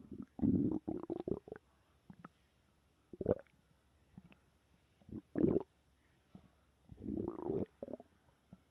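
Human stomach growling and gurgling in four separate bouts: a run of short gurgles near the start, single gurgles at about three and five and a half seconds, and a longer rumble near the end.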